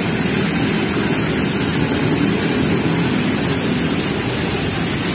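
Fountain jets spraying and splashing into a pool: a steady, even rush of water.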